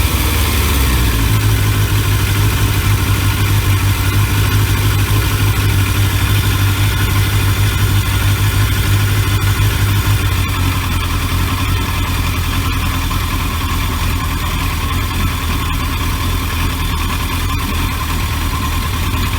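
1983 Yamaha XJ650 Seca Turbo's four-cylinder engine idling steadily on choke just after a cold start, a little quieter from about ten seconds in.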